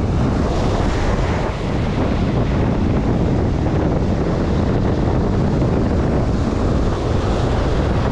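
Wind buffeting the microphone, a steady low rumble over the wash of breaking surf.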